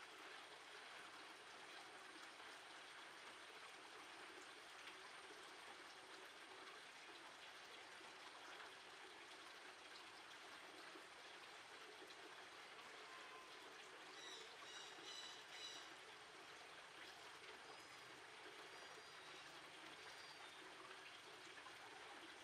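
Near silence: a faint steady hiss, with a short run of high chirps about two-thirds of the way through.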